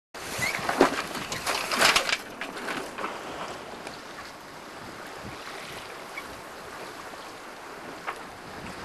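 Wind buffeting the microphone and water washing along a sailboat's hull on choppy water, gusting loudest in the first two seconds, then settling to a steady rushing hiss.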